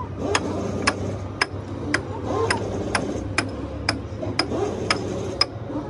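Steady hammer strikes on steel, evenly spaced at about two a second, each a sharp ringing tap, over a low steady hum.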